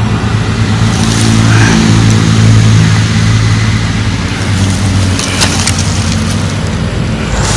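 A steady engine hum that fades out about five seconds in, under a loud, even rushing noise.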